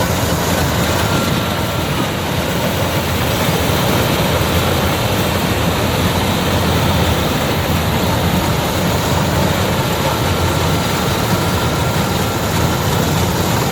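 Rice combine harvester running steadily, a dense, unbroken mechanical noise.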